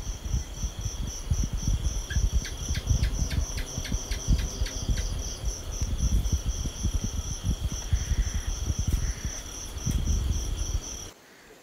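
A house gecko (cicak) calling: a quick run of about a dozen sharp chirps, about four a second, starting about two seconds in. Under it, a steady high pulsing chirp of night insects and a low rumble on the microphone; everything cuts off suddenly just before the end.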